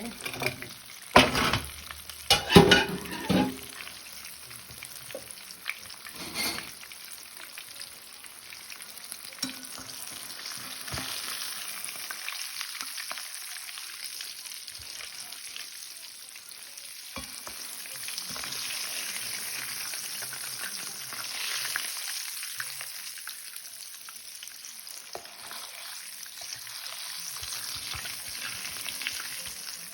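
Breaded chicken Kiev rolls frying in hot oil in a pan, a steady sizzle that swells and eases. A few sharp knocks in the first three seconds.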